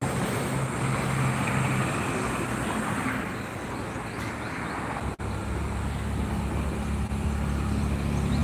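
Road traffic noise beside a road. About five seconds in, after a brief dropout, a steady low engine hum sets in from an approaching heavy vehicle.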